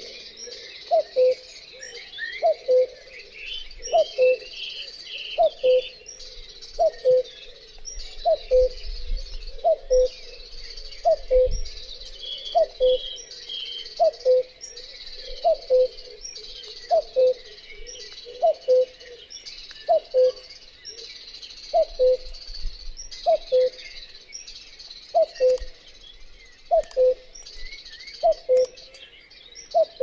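Male common cuckoo (Cuculus canorus) calling its two-note falling "cuck-oo", repeated steadily about every second and a half, over a background of small birds chirping.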